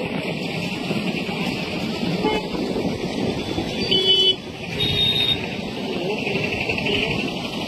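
Two short vehicle horn toots, about four and five seconds in, over a steady outdoor rush of background noise.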